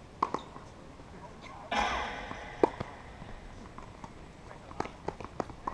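Tennis ball struck by racquets in a rally: a sharp hit about a quarter second in and a louder crack about two and a half seconds in, with a short burst of noise just before it. Lighter taps of footsteps and ball bounces on the hard court come near the end.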